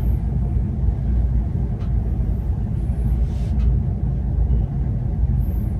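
Steady low rumble with a faint hiss above it, and a couple of faint brief sounds partway through.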